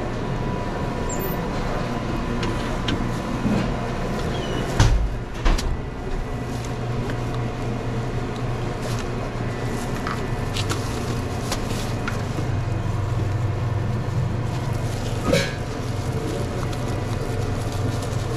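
Sandwich-line work at a fast-food counter over a steady hum of kitchen equipment: light clatter of utensils and containers, with two sharp knocks about half a second apart some five seconds in and another about fifteen seconds in.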